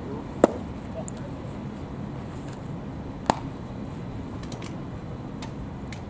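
A pitched baseball smacking into the catcher's mitt about half a second in: one sharp pop. A second, slightly quieter sharp click follows about three seconds later, over steady low background noise.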